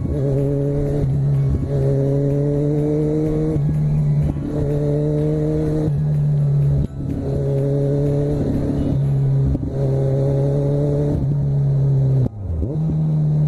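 Kawasaki Z1000's inline-four engine running at a steady cruising speed, the throttle eased off and on again every couple of seconds. Near the end the revs dip briefly and pick back up.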